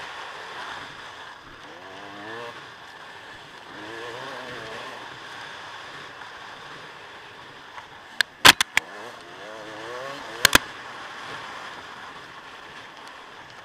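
Dirt bike engine running under load, its pitch climbing and dropping back several times as it revs through the gears. It sits over a steady rushing noise. A quick cluster of loud, sharp knocks comes past the middle, and a pair follows a couple of seconds later.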